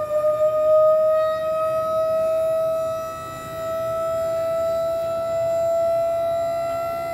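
Hydraulic pump of a Vac'NJet trailer jetter whining steadily while it raises the spoils tank's clamshell rear door and tilts the tank, its pitch creeping slowly upward as the load builds.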